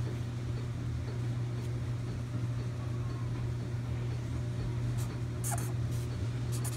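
Black Sharpie marker writing on paper over a steady low hum; from about five seconds in, the felt tip scratches and squeaks in quick strokes.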